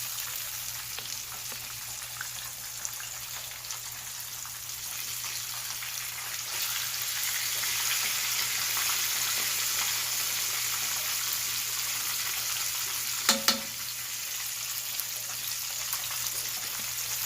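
Battered trout frying in hot grease: a steady sizzle that swells about six seconds in. Two sharp clicks sound close together about three quarters of the way through.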